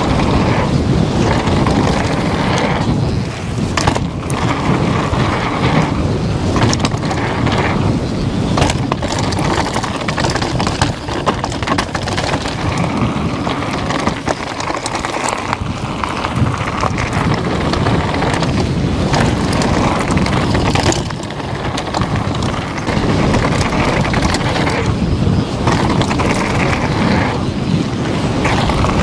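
Downhill mountain bike ridden fast down a rough trail: tyres rolling over rock and dirt under constant wind buffeting on the camera's microphone, with frequent sharp clattering knocks from the bike over bumps.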